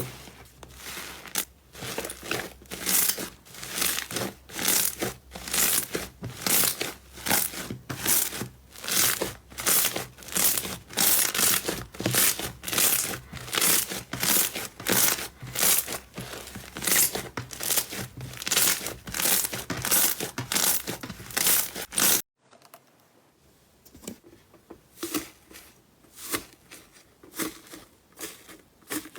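Slime being squeezed and kneaded by hand, making rhythmic crackling squelches about one or two a second. About 22 seconds in it cuts abruptly to a quieter, sparser run of similar squishes.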